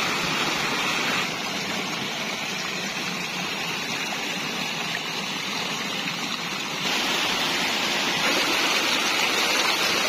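Shallow rocky stream rushing and splashing over stones in a steady hiss of flowing water. It drops a little in loudness about a second in and swells again near seven seconds.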